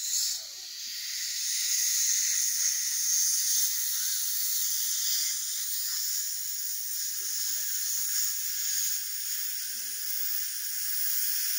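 Steady airy hiss from dental equipment working in the patient's open mouth, building up over the first second or two and then holding.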